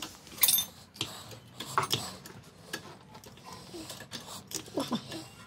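Trolley jack being worked to lift the car's rear hub into place: irregular metallic clicks and clunks, the sharpest about half a second, two seconds and five seconds in.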